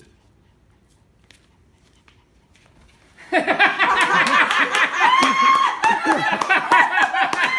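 A quiet room, then about three seconds in a sudden outburst of a group's excited laughter, high squeals and clapping: a delighted reaction to a surprise.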